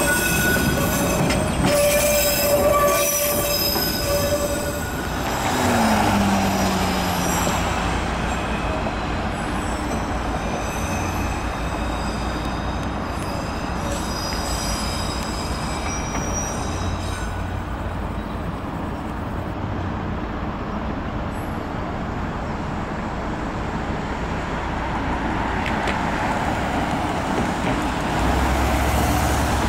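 MBTA Red Line subway cars' wheels squealing against the rails as the train moves slowly over curved yard track: several high-pitched squeal tones at once, strongest in the first few seconds and fading out after about fifteen seconds, over a steady low rumble.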